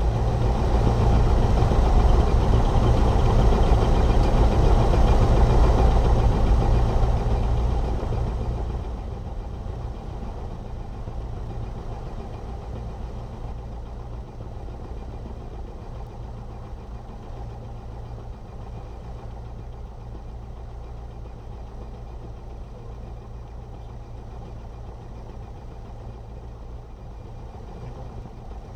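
Light aircraft's piston engine running while the plane holds on the runway awaiting takeoff clearance, louder for about the first eight seconds and then throttled back to a lower, steady idle.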